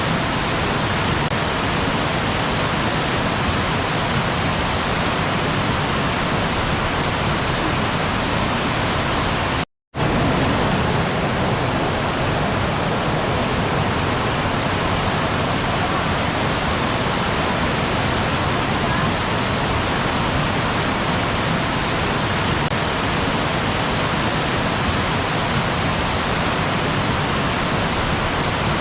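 Waterfall: a steady rush of falling water, broken by a brief, complete silence about ten seconds in, after which it resumes slightly duller.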